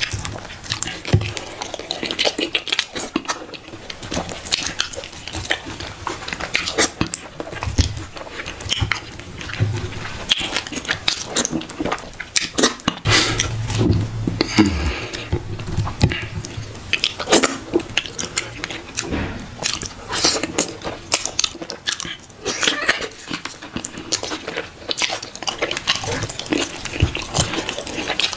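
Close, wet eating sounds: chewing and lip-smacking on soft swallow dough dipped in slimy, oily soup, mixed with squelches as the fingers work the dough and soup. A dense run of quick smacks and clicks.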